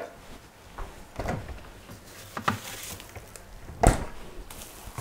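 A few soft knocks of handling, then one louder sharp wooden knock a little before four seconds in from the cabinet-fronted door of a built-in kitchen fridge.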